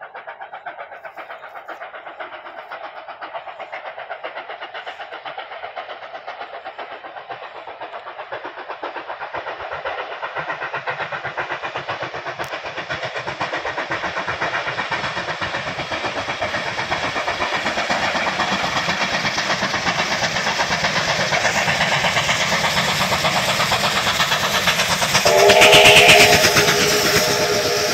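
Steam locomotive 3801, a streamlined NSW C38 class Pacific, approaching at speed: a fast, even exhaust beat that grows steadily louder as it nears. Near the end its steam whistle sounds once for about two seconds, the loudest part.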